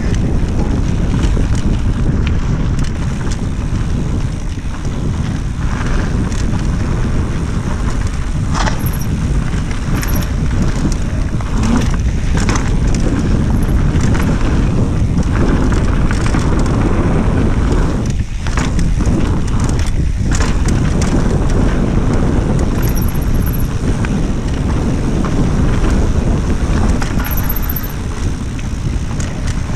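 Mountain bike descending a dirt singletrack at speed: tyres rumbling over the ground and wind buffeting the camera microphone, with scattered rattles and knocks from the bike.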